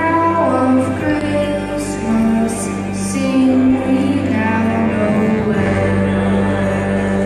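A boy singing a solo into a microphone over long held accompaniment chords.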